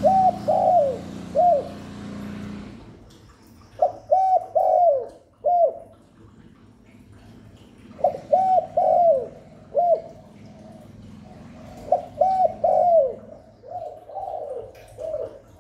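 Spotted dove cooing: four phrases of three or four coo notes, the phrases about four seconds apart. A low rumble dies away about three seconds in.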